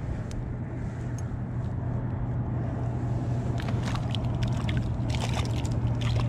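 A steady low hum throughout. From about three and a half seconds in come splashes and clicks as a smallmouth bass thrashes at the top of the ice-fishing hole while it is landed.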